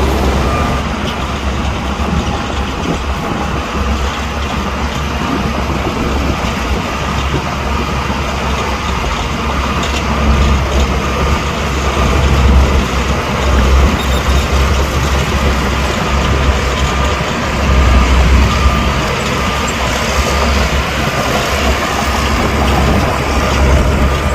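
Heavy diesel earthmoving machinery running under load: a deep, steady engine rumble with a faint whine, swelling louder a few times.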